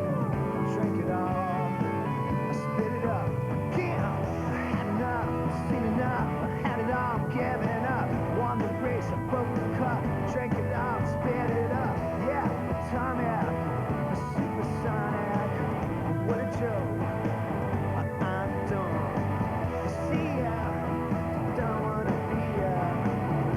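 Rock music with a steady beat, playing throughout.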